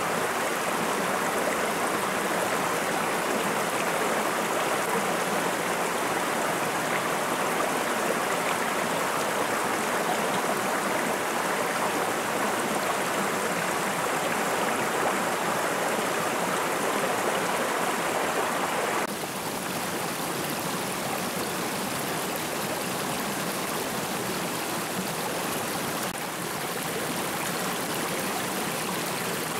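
Shallow rocky stream rushing over stones, a steady wash of flowing water that becomes a little quieter about two-thirds of the way through.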